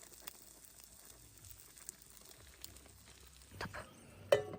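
Faint sizzling and small crackles of corn cooking in a pan, with one sharp clink about four seconds in, the loudest sound.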